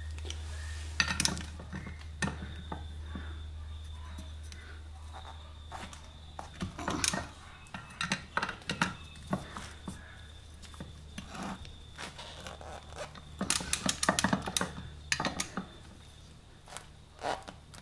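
Socket ratchet clicking and steel clinking as the nuts on a motorcycle's rear sprocket are tightened. Scattered clicks come through, with a quick run of them about three quarters of the way in.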